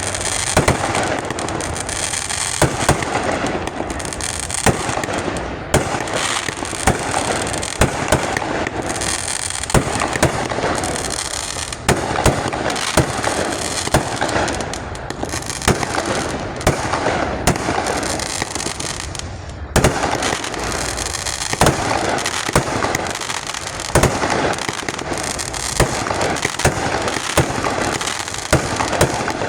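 Fireworks display: aerial shells bursting in sharp bangs every second or so over continuous crackling.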